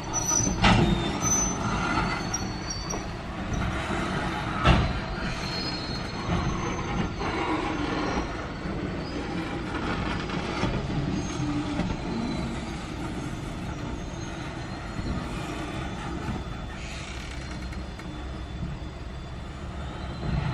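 Freight train of open-top hopper cars rolling past a grade crossing. Steel wheels squeal with thin high whines in the first few seconds over the steady rumble of the cars, with a couple of sharp metallic bangs, the loudest about five seconds in.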